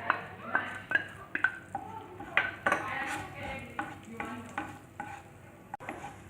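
A utensil stirring in a cooking pan as butter melts in it: irregular scrapes and clinks of metal on the pan, some briefly ringing, over a light sizzle.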